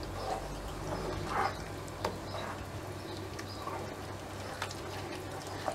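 A wooden spoon stirring a thick milk-and-flour cod sauce in a frying pan over low heat, with soft scrapes and occasional light clicks of the spoon against the pan. A steady low hum runs underneath.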